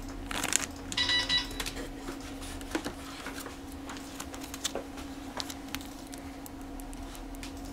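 Crinkling and rustling of a clear plastic bag around a plastic model kit sprue being handled, with the busiest handling and a brief squeak about a second in, then scattered small clicks and rustles as parts go back into the cardboard box. A steady low hum runs underneath.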